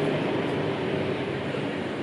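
A small electric motor running steadily, with an even noise and a faint hum, from a salon appliance such as a hair dryer or hair clipper in use during a haircut.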